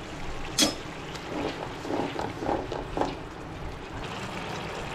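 Thick fish curry gravy (chitol macher kalia) bubbling at a simmer in a frying pan. A sharp click comes about half a second in, and a run of bubbling pops follows around two to three seconds.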